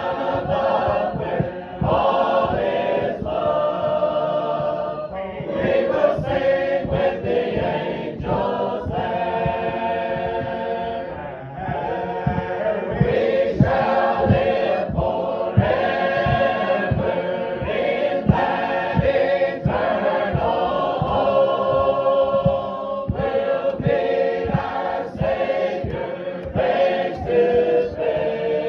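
Congregation singing a hymn together.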